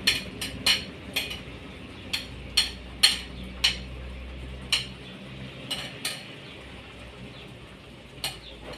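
A metal ladle clinking and scraping against a stainless steel frying pan and a plate as thick stewed eggplant is spooned out: a run of sharp, irregular clinks that thin out after about six seconds, with a couple more near the end.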